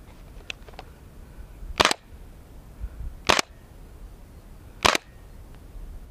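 Airsoft gun firing three single shots, evenly spaced about a second and a half apart, each a sharp crack. A couple of faint clicks come just before them.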